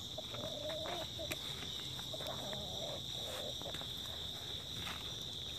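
Steady, high-pitched drone of an insect chorus, with chickens giving low, wavering clucks early on and again around the middle.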